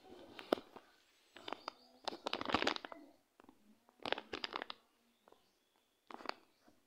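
Rubber balloon squeaking and crackling as a macaque grips it and rubs it against tree bark, in about five short spells, the longest and loudest two to three seconds in.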